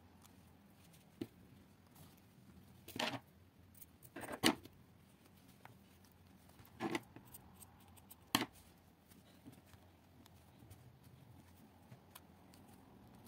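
Fabric being smoothed and pinned by hand: several short rustles and clicks a second or two apart, the loudest about four and a half seconds in.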